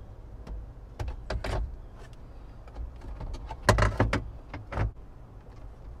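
Hard plastic dash trim knocking and clattering as the cupholder tray is handled and pushed into place in the dash, with a few knocks about a second in and the loudest clatter around the middle. A steady low hum runs underneath.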